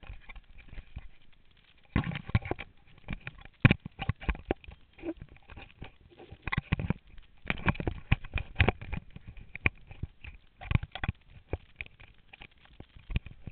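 Handling noise from fingers gripping and moving over a small camera right at its microphone: irregular rubbing, clicks and knocks, with a quieter stretch about halfway through.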